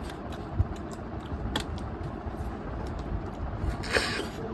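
A person sucks the meat out of a cooked snail's shell, a short hissing slurp about four seconds in, over a steady low background rumble. A couple of light clicks come earlier.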